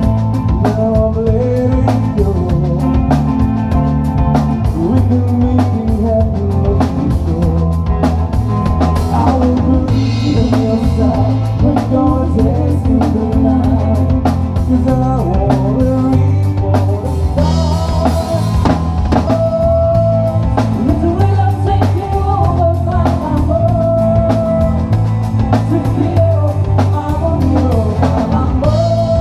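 Live band playing a song with a drum kit and electric bass guitar under a woman's lead vocal sung into a microphone.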